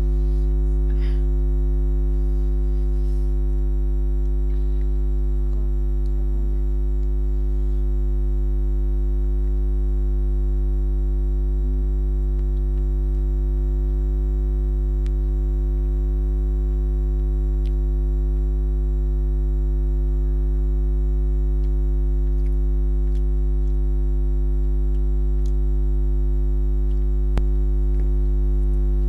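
Loud, steady electrical mains hum with a stack of harmonics, an audio fault in the recording that drowns the eating sounds. A few faint clicks sound over it.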